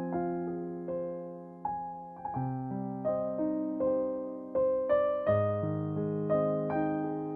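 Background music: a slow, gentle solo piano piece, notes and chords struck every second or so and left to ring.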